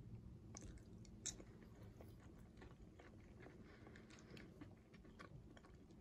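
Faint chewing of a pitted black olive, with scattered soft mouth clicks, one sharper about a second in.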